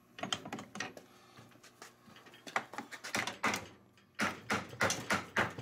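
Metal hammer striking the axle bolt of a snowmobile skid's idler wheel to drive the axle out. A few light knocks come first, then steady blows about three a second from about two and a half seconds in.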